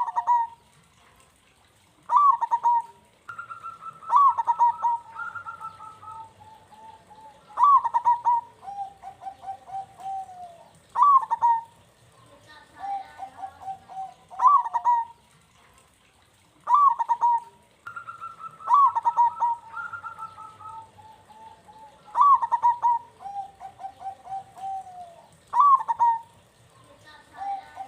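Zebra dove (perkutut) singing its cooing song steadily: each phrase opens with a sharp note and runs into a string of quick coos, a new phrase every two to three seconds.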